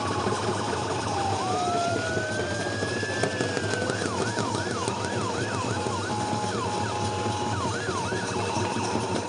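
A siren-like tone gliding slowly up and down, then from about four seconds in a run of quick rising-and-falling whoops, over a steady outdoor background din.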